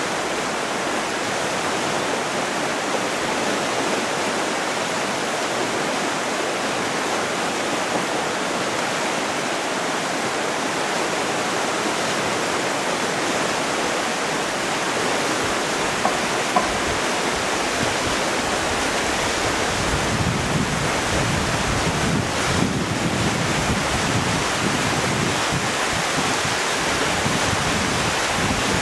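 River in flood rushing over shallow stony rapids: a steady, unbroken rush of fast water. From about twenty seconds in, wind buffets the microphone with low, gusty rumbles.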